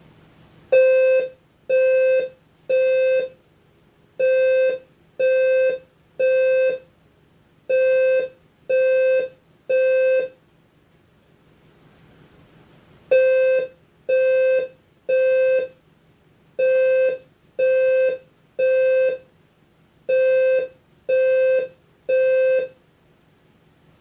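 Fire alarm sounding a low-frequency Temporal-3 evacuation tone: a buzzy horn-like tone of about 520 Hz in groups of three half-second beeps, six groups in all, with a longer pause about halfway.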